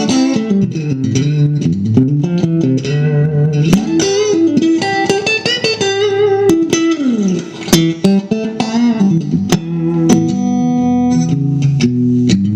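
1983 Fender Elite Stratocaster electric guitar played with all three pickups switched on: a run of picked notes with slides, and a chord left ringing near the end.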